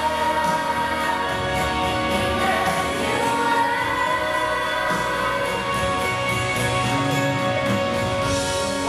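Middle-school choir singing a slow song over an accompaniment, holding long sustained notes.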